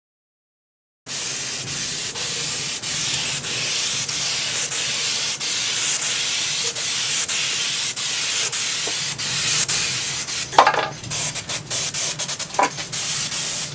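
Aerosol can of spray contact adhesive hissing in a long, steady spray that starts about a second in, coating the back of a sheet of wood veneer. Over the last few seconds it breaks into short, uneven spurts.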